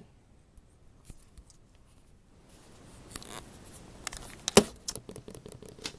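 Handling noise of a camera being moved by hand: a few faint ticks, then rubbing and scraping on the microphone from about two and a half seconds in, with scattered clicks and one sharp click near the middle.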